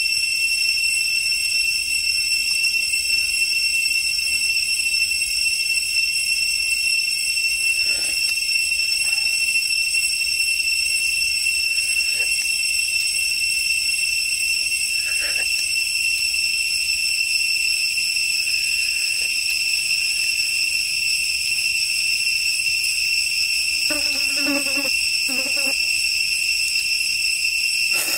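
Steady high-pitched insect drone from the surrounding forest. A few faint clicks and, near the end, two short hums of the man eating.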